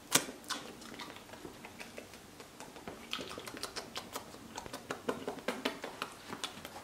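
Someone eating scrambled eggs during a taste test: quiet, irregular small clicks and taps. There is one sharp click just after the start, and the clicks come thicker in the second half.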